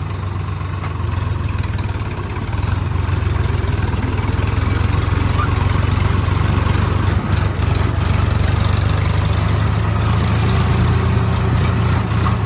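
Swaraj 963 4WD tractor's diesel engine running while driving, heard from the driver's seat as a steady low rumble that grows louder about two and a half seconds in.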